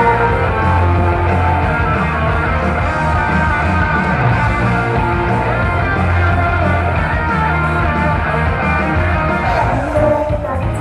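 Upbeat idol pop song played loud over a stage sound system, with a heavy, steady bass line and female singing.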